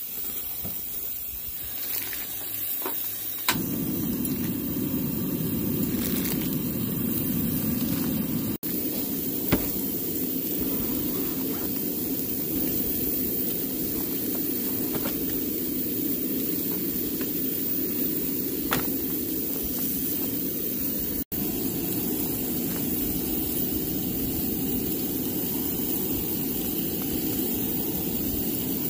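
Food sizzling on a Coleman camp grill with the burner going: a steady hiss that starts suddenly about three and a half seconds in, with a few light clicks and knocks.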